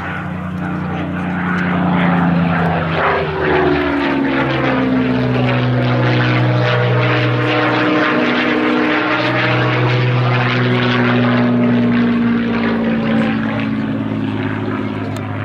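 Supermarine Spitfire's Rolls-Royce Merlin V12 engine and propeller running as the aircraft flies a display pass overhead. The engine note shifts in pitch as it goes by.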